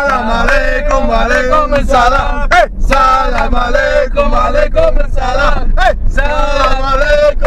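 A man singing a wavering, ornamented melody in short phrases over a steady low rumble.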